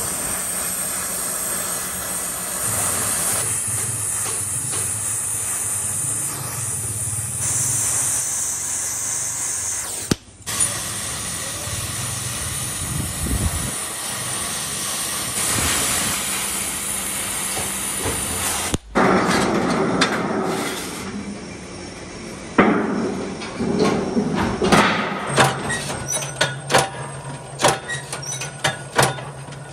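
Metalworking shop noise: a steady hiss over a low hum that breaks off abruptly twice, then a run of sharp metal knocks, like hammering, roughly one or two a second in the last several seconds.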